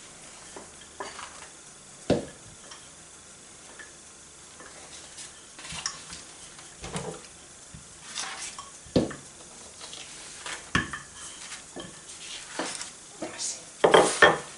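Wooden rolling pin rolling over a sheet of puff pastry on baking paper, with soft rustling and scattered light knocks. A louder clatter near the end as the rolling pin is put down on the countertop.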